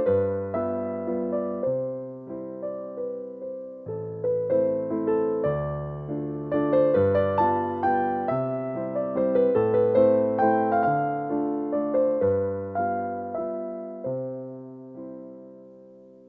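Background music: solo piano playing a gentle melody over chords, note by note, fading out near the end.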